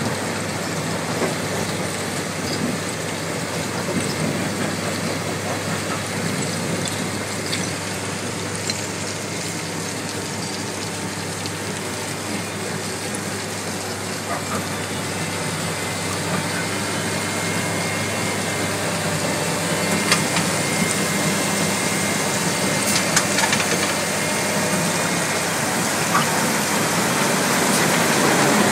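Extec C10 mobile jaw crusher running while crushing concrete rubble: a steady diesel drone under the rattle and hiss of crushed rubble pouring off the conveyor onto the pile, with scattered sharp knocks of stone. It grows louder toward the end.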